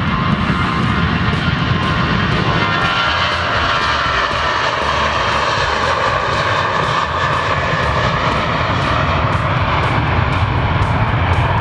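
Boeing 737-800's CFM56 turbofan engines at takeoff thrust during the takeoff roll: a loud, steady jet roar with a whine on top that drops in pitch as the aircraft passes close by.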